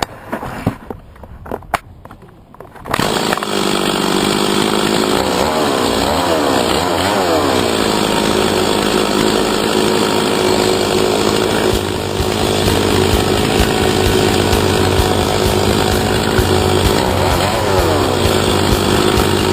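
A chainsaw starts up about three seconds in, after a few sharp clicks, and then runs loudly and steadily while carving. Its pitch swings up and down twice as it is revved.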